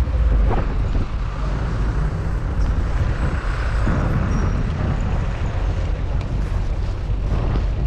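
Steady low rumble of vehicle engine and road noise while travelling along a road.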